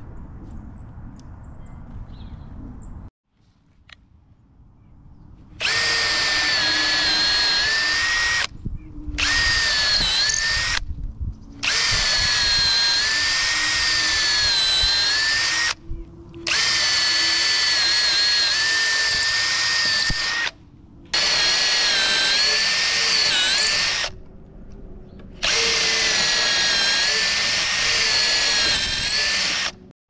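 Cordless drill boring holes through a pressure-treated 2x4 in six runs of a few seconds each, with short pauses between them; the motor whine holds a steady pitch through each run. The first few seconds hold only faint background noise.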